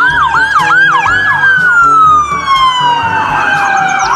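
Electronic police-car siren: a fast yelp of about four rising-and-falling chirps a second, over a long tone that falls slowly in pitch from about a second in and jumps back up at the end. A background music beat runs underneath.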